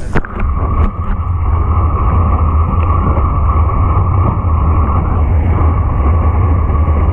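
Hot tub jets churning and bubbling, heard underwater as a loud, steady, muffled rumble through an action camera's waterproof housing. There are a few small knocks in the first second.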